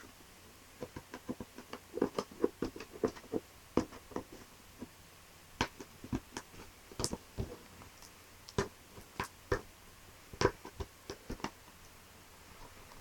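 Fingers picking at and opening a small cardboard box: irregular runs of short clicks, taps and scratches, with a brief lull near the end.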